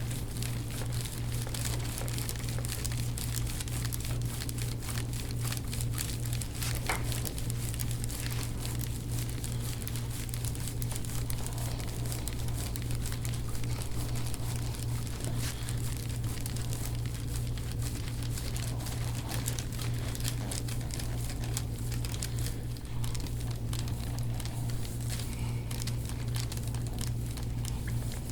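Soft rustling and crinkling with many small faint clicks, from hands and elbow working over a patient's back in deep-tissue massage, over a steady low hum.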